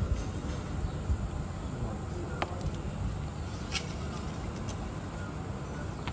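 Outdoor street ambience: a steady low traffic rumble with faint background voices, and a couple of short light clinks of steel plates being set down on a table.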